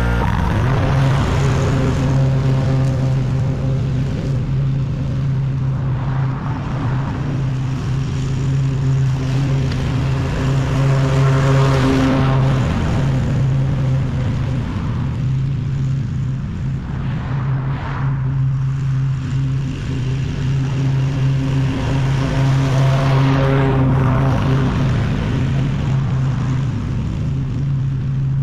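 Walk-behind gas lawn mower engine running steadily under load as it cuts overgrown grass, with a constant low hum that swells a little now and then.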